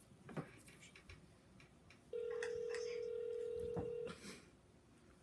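Telephone ringback tone on a smartphone speaker: a single steady ring about two seconds long, starting about two seconds in and cutting off cleanly. The call is ringing at the other end and has not been answered yet. A few faint taps come before it.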